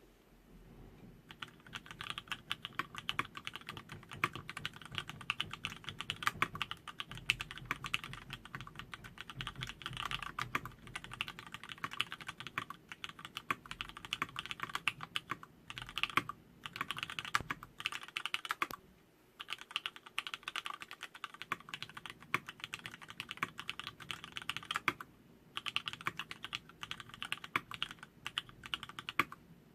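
Continuous fast typing on an LZ-IRON custom mechanical keyboard with vintage Cherry MX Black linear switches on 62 g springs in an aluminum plate: a dense run of keystrokes that starts about a second in, broken by a few short pauses.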